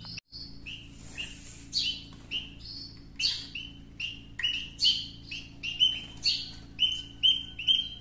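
Nestling birds chirping in short, repeated high begging calls as they are hand-fed, the calls coming faster in the second half.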